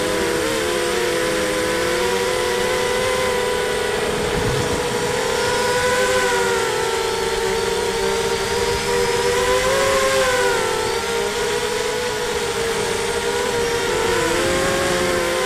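Brushless motors and 5x4 props of a ZMR 250 racing quadcopter (RCTimer 2300kv motors) heard from its onboard camera: a steady buzzing whine of several close pitches that wobble apart and together as the throttle changes, over a rush of air noise.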